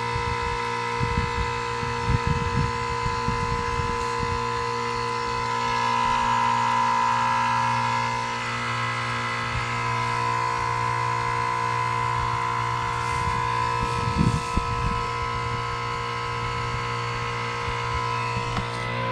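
Vintage 1980s Comfortmaker/Snyder General heat pump outdoor unit running through its defrost cycle: a steady electric compressor hum with several steady tones, swelling slightly in loudness partway through. Brief low rumbles of wind on the microphone come a second or two in and again about fourteen seconds in.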